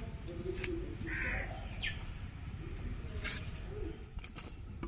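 A single bird call about a second in, over a low steady rumble, with scattered light clicks and knocks.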